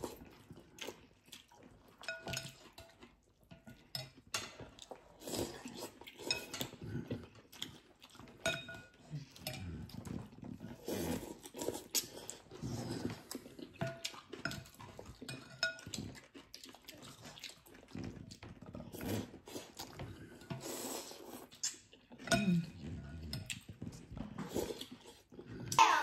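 Spoons and chopsticks clinking against ceramic bowls during a meal of noodle soup, with scattered light clicks and soft slurping and eating noises.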